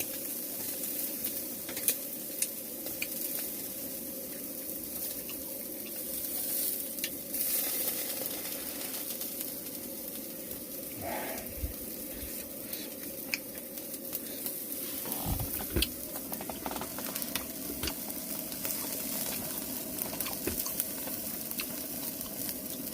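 Food sizzling in a frying pan, a steady hiss with scattered small clicks.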